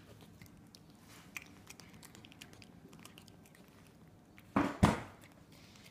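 A cat eating, with faint small clicks of chewing, then two loud sharp knocks about a quarter second apart near the end.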